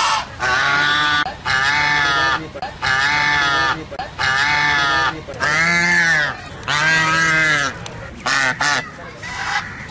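Goose honking over and over in long, drawn-out calls, about one a second, then a few quick short honks near the end.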